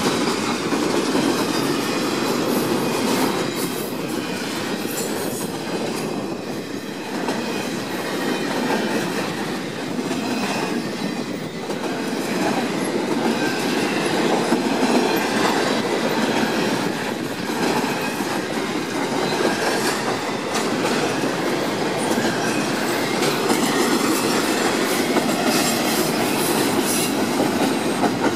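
Double-stack intermodal freight train rolling past steadily: a continuous rumble of steel wheels on rail with fast clickety-clack from the well cars' wheels.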